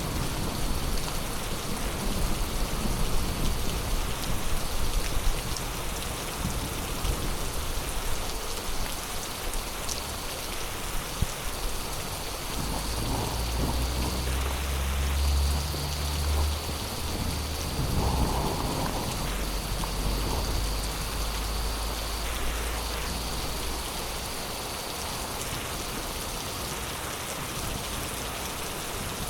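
Heavy rain pouring steadily, with a deep rumble of thunder rolling through the middle and fading out.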